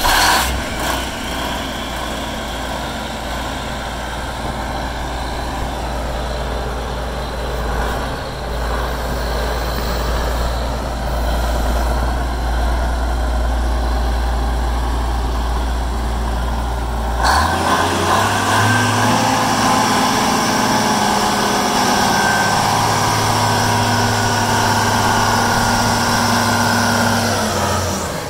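Cummins six-cylinder diesel of a 1994 Case IH 9270 Steiger four-wheel-drive tractor running just after a start, first at a low steady idle. About two-thirds through the engine note steps up and holds at a higher, steady speed.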